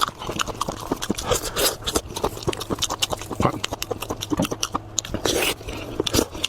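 Close-miked chewing of sheep's head cartilage: an irregular run of crunches and wet mouth clicks.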